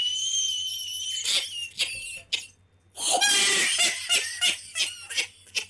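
A man laughing hard: a high, held squeal for about the first second, then a run of short bursts of laughter with a brief pause in the middle.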